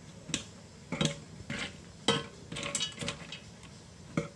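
Scissors snipping through dried herbal ingredients: a string of irregular sharp clicks and crunches about every half second, a few with a short metallic ring.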